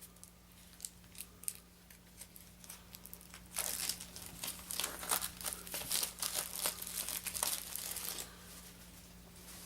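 Plastic wrapping on a pack of game cards being torn and crinkled open by hand: a few scattered crackles at first, then about five seconds of dense crinkling from around three and a half seconds in, thinning out near the end.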